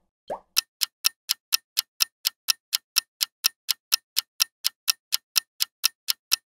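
Countdown clock ticking sound effect: sharp, even ticks about four a second, starting just after a single soft plop.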